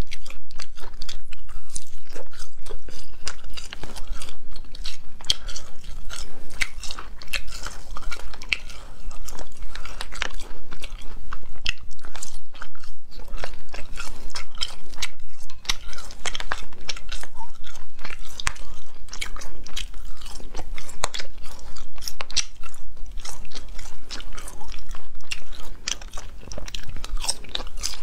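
Close-miked chewing and biting of spicy gluten strips (da la pian, a latiao snack): a dense, irregular run of small mouth clicks.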